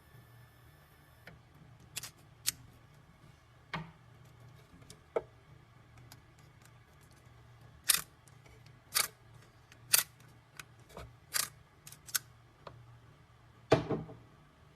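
Irregular sharp clicks and knocks, about fifteen of them, from hands working a key cutting machine and its clamp. A faint high whine cuts off about a second in.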